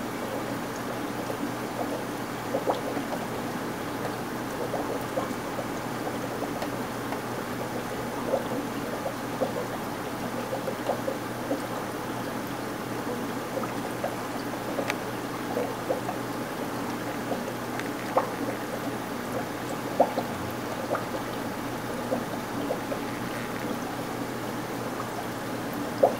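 Aquarium water trickling and bubbling steadily, with small irregular plinks every second or so.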